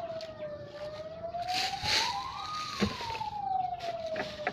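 A siren wailing, its pitch sliding slowly down, up over about two seconds, and down again. A couple of sharp knocks sound about three seconds in and near the end.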